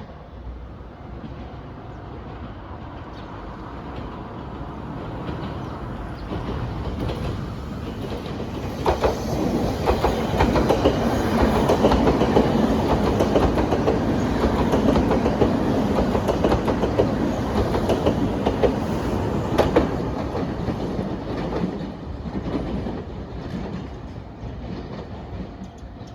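A Nankai Line electric train passes, growing louder, then fading away. Its wheels click rhythmically over the rail joints while it is closest.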